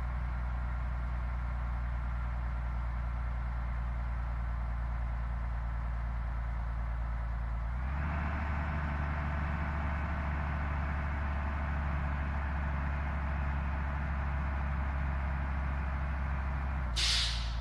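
A bus's engine running steadily with a low hum. About eight seconds in a louder, hissier layer of engine and road noise joins, and a short burst of hiss comes near the end.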